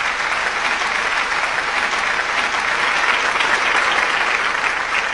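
Large seated audience applauding steadily, a dense, even clapping.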